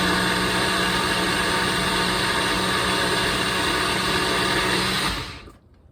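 Countertop blender running steadily on a smoothie, then switched off about five seconds in, its motor winding down quickly.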